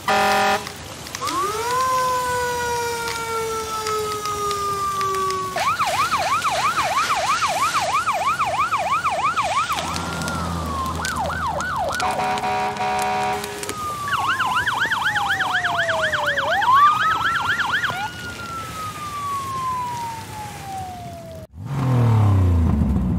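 Electronic fire truck siren alternating between a slow wail that climbs and then falls away and a fast yelp repeating about four times a second, with steady horn blasts at the start and about twelve seconds in. After a brief dropout near the end, a short low sound falls in pitch.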